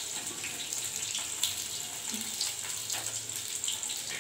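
Potato chunks frying in hot oil in a metal kadai: a steady sizzle, with a few light clicks of a metal spatula against the pan.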